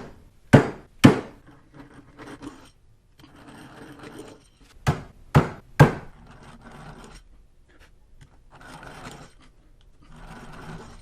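Sharp knocks on wood in two quick sets of three, near the start and about five seconds in, with softer scraping and rubbing of wood between them, during work fitting piano hinges to a wooden box.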